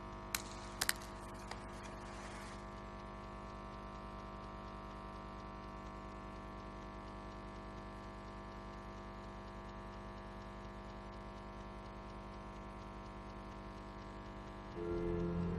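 Steady electrical mains hum from the broadcast audio chain, with a few sharp clinks in the first couple of seconds as the altar vessels are handled. Music starts just before the end.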